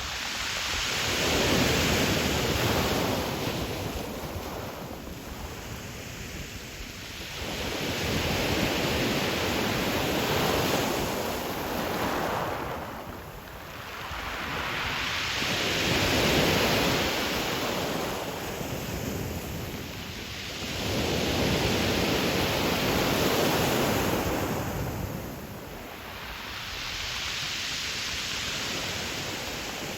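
Sea waves breaking on a pebble beach, the surf swelling and falling away in about five long surges, each rush lasting several seconds.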